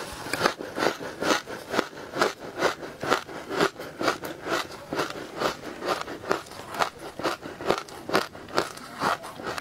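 A person biting into and chewing a mouthful of matcha-powdered ice: a steady run of crisp crunches, about two to three a second.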